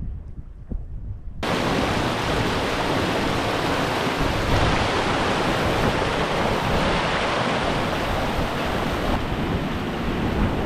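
Rushing water of the Savage River, a loud steady rush that starts suddenly about a second and a half in. Before it, a low wind rumble on the microphone.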